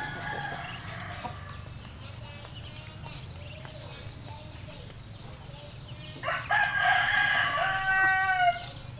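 A rooster crows once, one long call of about two and a half seconds starting about six seconds in, louder than everything else. Softer chicken calls come in the first couple of seconds, over a steady low hum.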